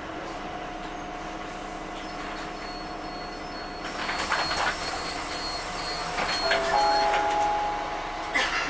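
Inside an Iveco Urbanway 12M city bus under way: steady drive and road noise with a hum, growing louder and rattlier about four seconds in. A faint high beeping repeats in the middle, and a short electronic tone sounds near the end.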